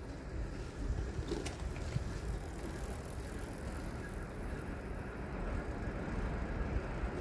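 Freight train hauled by an electric locomotive approaching from a distance: a steady rolling rumble that slowly grows louder, with a few faint clicks.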